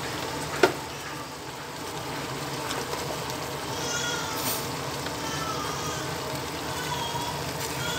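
Steady hiss and hum of a gas burner heating a pot of soup, with a single sharp click about a second in. Faint short high calls from an animal come and go in the second half.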